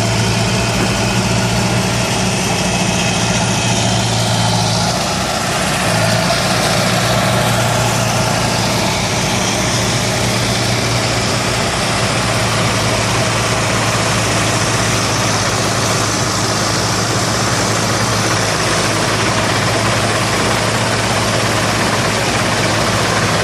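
Heavy diesel engine of a 20-tonne Hitachi excavator running steadily under a constant wash of machinery noise. Its note dips briefly about five seconds in, then picks up again.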